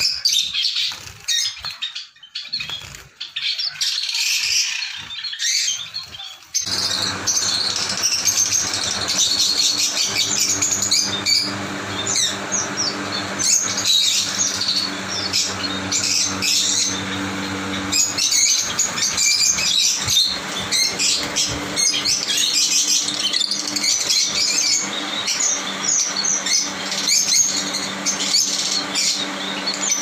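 A flock of small caged finches chirping and twittering, with wing flutters as birds flit between perches. About six seconds in, the twittering turns denser and continuous over a steady low hum.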